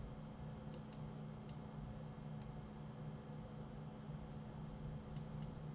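Faint computer mouse clicks, about six scattered over a few seconds, some in quick pairs, over a low steady hum.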